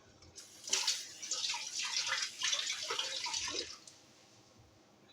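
Kitchen tap running with water splashing over hands being washed in the sink, for about three seconds, then shut off.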